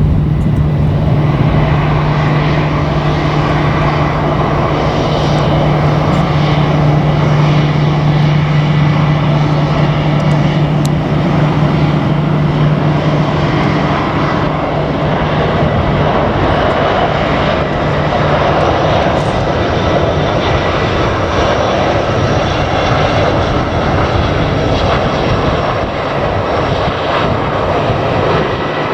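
Bombardier Global Express business jet arriving to land, its twin turbofans making a loud, steady jet noise. A low steady hum sits under it and stops about halfway through.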